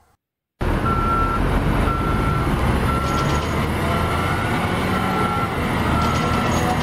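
Concrete mixer truck's diesel engine running steadily while its reversing alarm beeps about once a second; the sound cuts in about half a second in.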